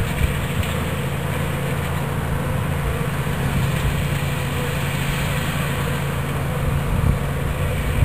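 Honeybee swarm buzzing with a steady, even hum.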